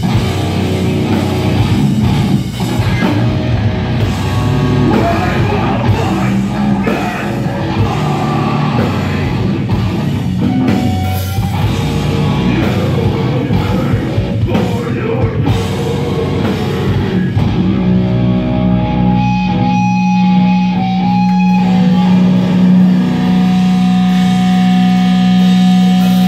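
A heavy rock band playing live: drum kit, electric guitars and bass at full volume. About two-thirds of the way through, the drums stop and the guitars ring on in a sustained low drone with thin held higher tones as the song winds down.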